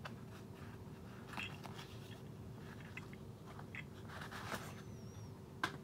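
Old stiff paper wrapping of a compass package being torn and unfolded by hand: scattered crackling and rustling of paper in a few clusters.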